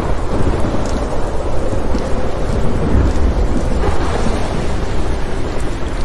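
Thunderstorm: thunder rumbling low over steady rain, with the deepest rumble about halfway through.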